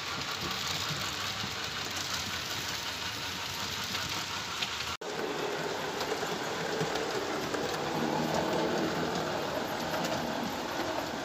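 Model trains running on layout track: a steady mechanical running sound from the motors and wheels on rail, broken by a brief dropout about five seconds in.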